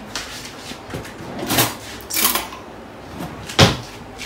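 Kitchen handling sounds: a couple of short scrapes, then a single sharp knock about three and a half seconds in, as a jar of mayonnaise and a metal spoon are handled at the counter.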